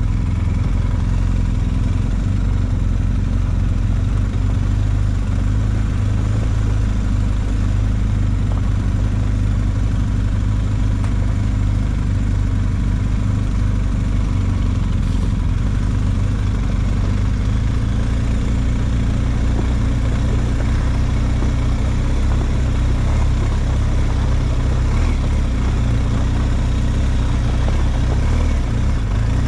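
Quad bike engine running steadily, its low drone holding an even level and pitch with little revving.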